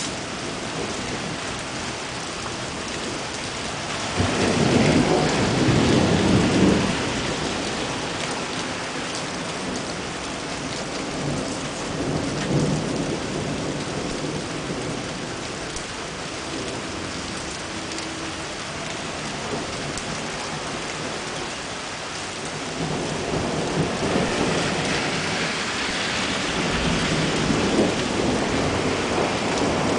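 Heavy thunderstorm rain falling steadily on wet streets, with rolling thunder. A long rumble swells about four seconds in, and another builds near the end.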